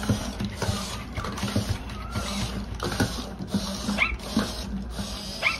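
Robot dog giving short electronic puppy whimpers and yips, two rising chirps about four seconds in and near the end, over the whir of its servo motors and light clicks.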